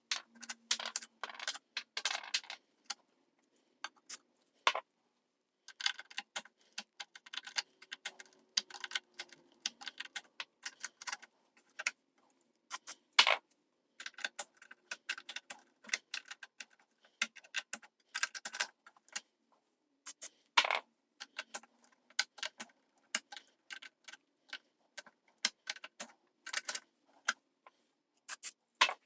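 Irregular clicking and light metallic rattling as preamp vacuum tubes are pulled out and pushed back into their sockets several times, working contact cleaner in to clear corrosion from the socket contacts.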